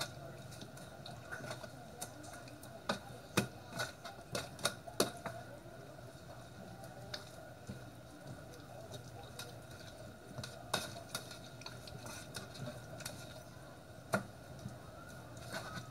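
Hands rubbing a thick, wet jerk marinade into raw chicken pieces on a metal baking sheet: irregular clicks and taps as fingers and meat knock against the tray, over a steady background hum.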